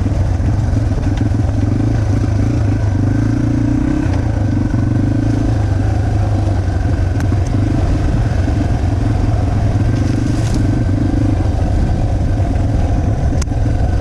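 Yamaha TT-R 230 trail bike's single-cylinder four-stroke engine running steadily under way on a dirt trail, its note changing little, with a few faint clicks from the bike over the ground.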